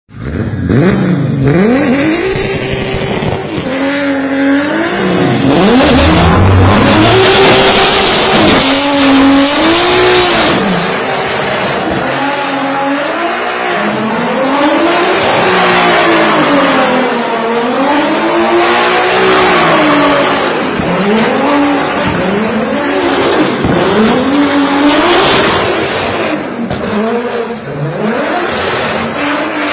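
A car engine revved hard again and again, its pitch rising and falling every second or two, over the hiss of spinning, squealing tyres as the car drifts in circles.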